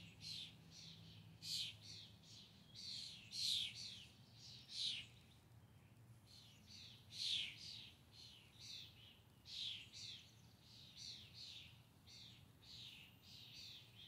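Songbird chirping: a long run of short, quick chirps, many sliding down in pitch, coming every half second or so with small gaps.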